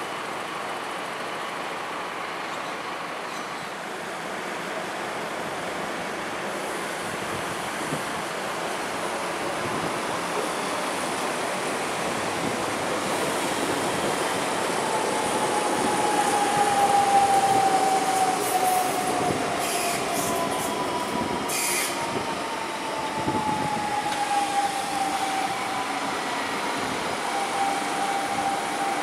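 Singapore MRT C151 train braking into an elevated station. The rolling wheel and track noise builds to its loudest as the train passes close. A motor whine falls steadily in pitch as it slows, and there are a few brief high wheel squeals about two-thirds of the way through.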